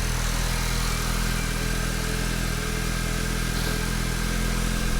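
2019 Volkswagen GTI's 2.0-litre turbocharged four-cylinder engine running steadily at an even pitch, with a carbon-fibre intake fitted.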